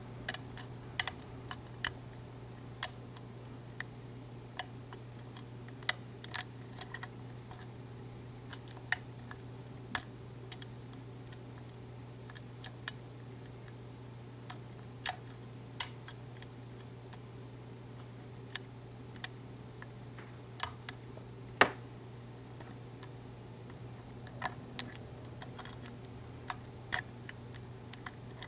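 A lock pick and tension wrench working in the keyway of an ASSA V-10 high-security cylinder, which has six top pins and five side finger pins: irregular small metallic clicks and ticks, some in quick clusters, with one louder click about three-quarters of the way through. A steady low hum runs underneath.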